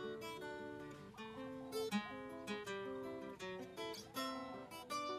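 Background music: an acoustic guitar playing a plucked melody of short, separate notes.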